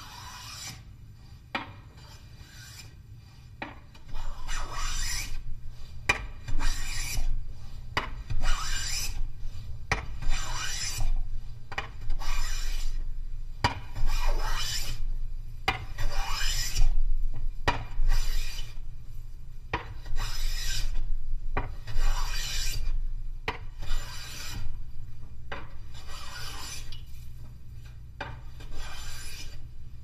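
A sharp wooden smoothing plane made by James Krenov, taking fine shavings off reclaimed teak in a steady run of strokes, about one a second. Each stroke is a crisp swish of the iron slicing cleanly through the wood, the sound of a sharp plane. The strokes get louder about four seconds in.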